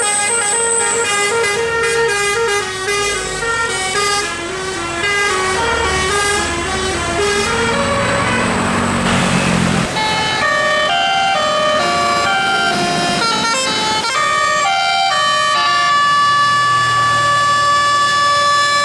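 Bus 'telolet' musical air horn playing a quick stepping tune, with a rush of noise about halfway through, then slower notes ending on one long held note.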